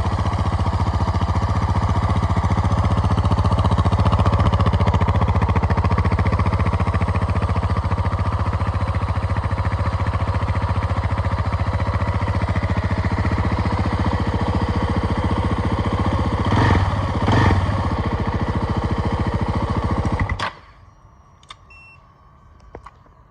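2018 KTM 690 Enduro R's single-cylinder engine idling steadily, given two short blips of the throttle, then switched off and cutting out suddenly near the end. Afterwards there are only a few faint ticks.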